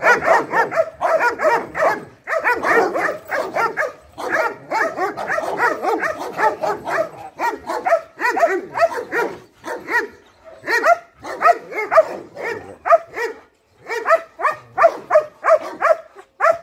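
Several chained guard dogs barking rapidly and continuously, a chorus of overlapping barks that thins into separate bursts after about ten seconds. The dogs are barking at an agitator approaching during protection training.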